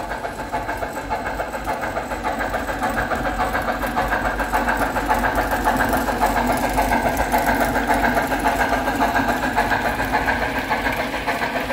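HO-scale model of a Duluth, Missabe & Iron Range steam locomotive running with a long train of ore cars, a steady mechanical sound with a fast, even pulse. It grows louder toward the middle as the engine passes close and eases slightly near the end.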